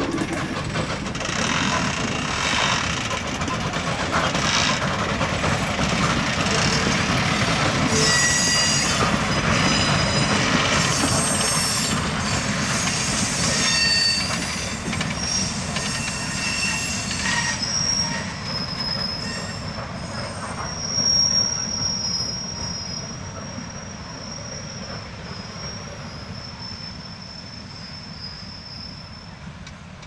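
Steam train of open passenger cars rolling past and away, the cars' wheels grinding and squealing on the rails. In the second half a single steady high squeal rings on while the whole sound slowly fades into the distance.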